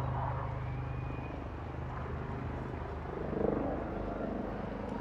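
A steady low engine drone, with a short high tone about a second in and a brief louder swell past the middle.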